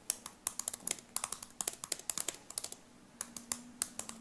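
Typing on a computer keyboard: quick runs of key clicks, a short pause about three seconds in, then a few more keystrokes.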